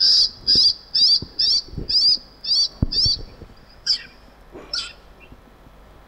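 Recording of a long-tailed shrike's territorial call: a run of about seven short, high, buzzy notes at roughly two a second, then two more single notes about four and five seconds in.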